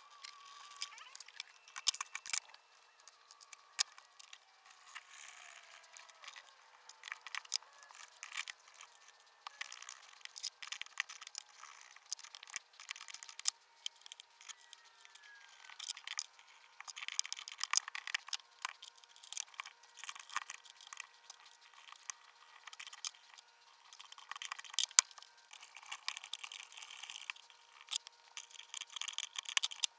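Hand-assembly sounds: scattered clicks, clinks and light scrapes of small metal hardware (washers, nuts, bolts) and an adjustable wrench being handled and fitted on a metal bracket over a wooden bench, irregular and at varying loudness.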